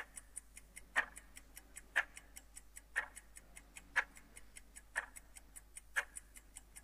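Quiz-show countdown timer effect ticking off the 10-second answer time: a louder tick once a second, with quicker, lighter ticks in between.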